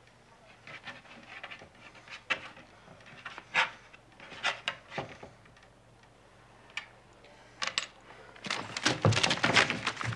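Paper sheets rustling and crackling in short bursts as they are handled. About eight and a half seconds in comes a louder flurry of knocks and shuffling movement, with a low thump.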